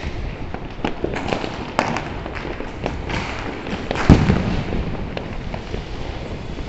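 Diwali fireworks and firecrackers going off: a continual scatter of pops and cracks, with one louder deep boom about four seconds in.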